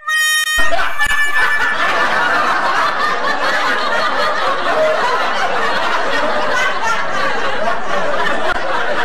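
A few musical notes in the first half-second, then a dense crowd of many voices laughing and shouting together, loud and without a break.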